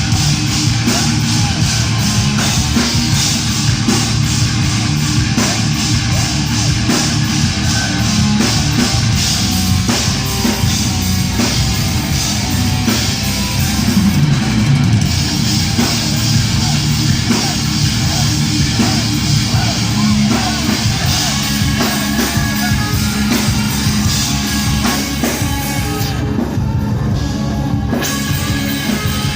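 Live heavy metal band playing loud: distorted guitars, bass and fast double-kick drumming with vocals, as recorded from the crowd. The cymbals and top end drop out briefly near the end.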